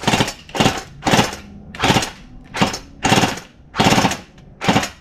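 ARES PPSh-41 electric-blowback airsoft gun firing on full auto in about eight short, sharp bursts, roughly one every half second to 0.8 s.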